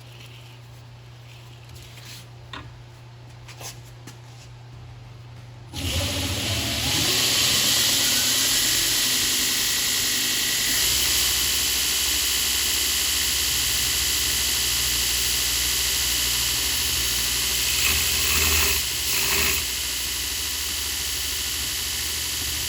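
An electric power tool motor switches on about six seconds in, its whine rising in pitch over a few seconds as it spins up to speed, then runs steadily with a loud hiss. Two short surges in the sound come near the end.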